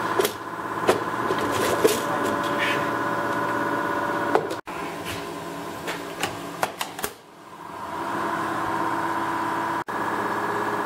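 Steady workshop machine hum, with light metallic clicks and clinks as a diesel fuel injector is taken apart and reassembled in a bench vise.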